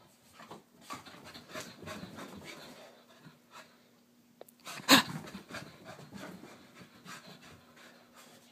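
Soft-Coated Wheaten Terrier panting in quick, uneven breaths while it runs about, with one loud thump about five seconds in.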